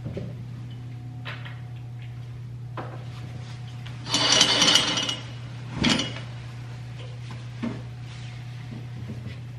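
Curtains being drawn shut, their rings scraping and rattling along the curtain rod in a loud burst about four seconds in and a shorter one about two seconds later, with a few light knocks around them.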